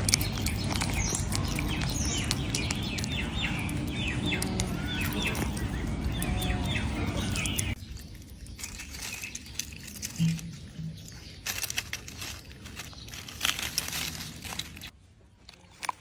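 Birds chirping rapidly over a steady rushing background noise, which cuts off about eight seconds in. A quieter stretch with scattered small clicks follows.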